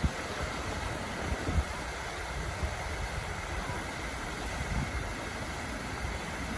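Steady rush of a waterfall, with a few brief low bumps.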